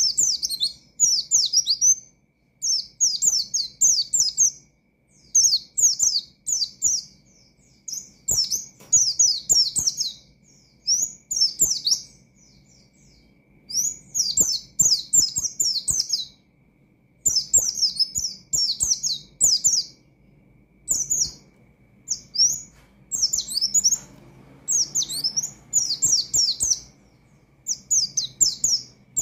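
White-eye (pleci) singing hard: rapid runs of high, quick falling notes in phrases of one to two seconds with short pauses between them. This is the vigorous, challenging song that is played to provoke other white-eyes.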